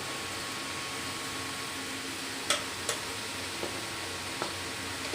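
Hot oil sizzling steadily in a pan of frying dahi bara (lentil fritters), with a few sharp clicks about two and a half seconds in and two fainter ones later.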